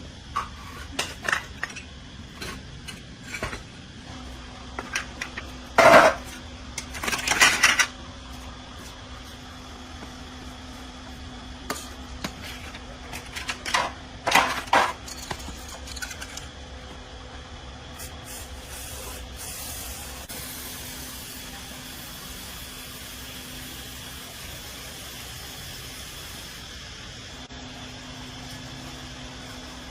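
Metal parts and tools clinking and knocking, a few louder clattering knocks among them, then a steady hiss through the second half.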